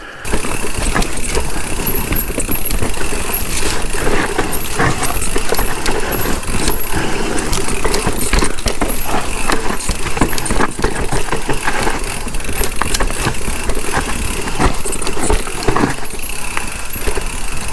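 Mountain bike riding fast downhill over a rough trail: a steady rush of tyre and wind noise, with constant rattling and frequent knocks from the bike over the rough ground.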